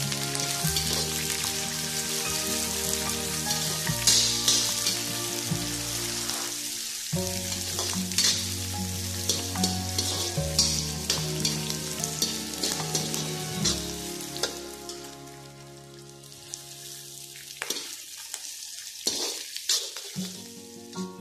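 Sliced onions, garlic and ginger sizzling in hot oil in a wok, stirred with a spatula that scrapes and clicks against the pan. The sizzle fades somewhat in the last few seconds, with background music underneath.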